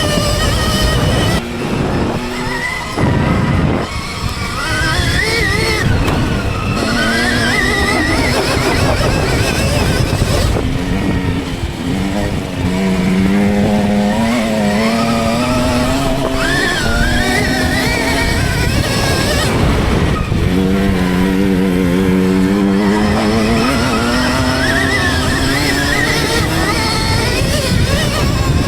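Dirt bike engines revving and accelerating, their pitch climbing in long rising runs about twelve seconds in and again about twenty seconds in.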